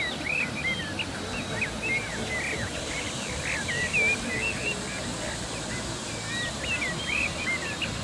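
Water rushing over a small rocky cascade in a stream, a steady rush, with birds calling throughout in short, curling notes.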